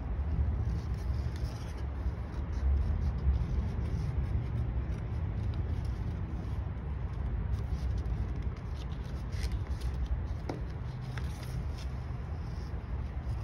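Scissors cutting watercolor paper, with a few small snips and paper handling over a steady low rumble.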